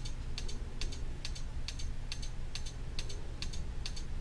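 Regular paired clicks, a little over two a second, steady in pace, over a low steady hum.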